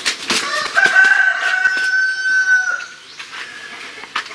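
A rooster crows once, one long held call of about two seconds starting about a second in. A couple of sharp knocks come just before it.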